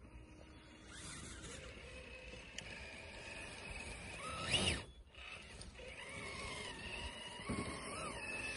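Whine of a Traxxas TRX-4 RC crawler's electric motor and gear drive as it climbs, changing pitch with the throttle and rising sharply in a brief burst of power about four and a half seconds in.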